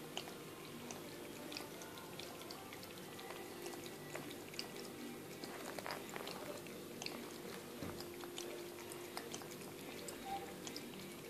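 A cat lapping water from a PetMate Fresh Flow pet fountain: quick, irregular small wet clicks of the tongue, over a steady low hum.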